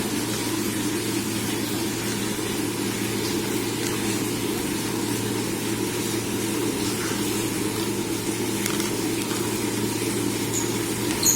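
Steady low mechanical hum, like an engine or passing traffic, with faint light ticks and a brief sharp click near the end.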